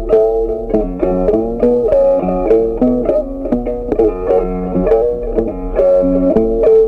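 Background music: an upbeat instrumental melody of quick plucked, guitar-like notes.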